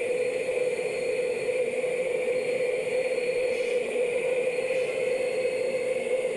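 Sukhoi Superjet 100-95 jet airliner with its SaM146 turbofans running: a steady drone with a held whine that neither rises nor falls.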